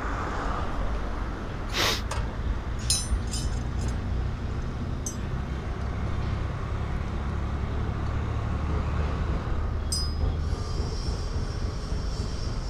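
A few light metal clinks of spanners at a motorcycle's rear wheel as its loose drive chain is tightened, over a steady low rumble.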